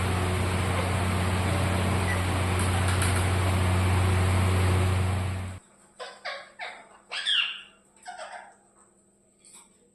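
A steady noise with a low hum that cuts off abruptly about halfway through, followed by a parrot's short chirps and squawks, several separate calls bending up and down in pitch.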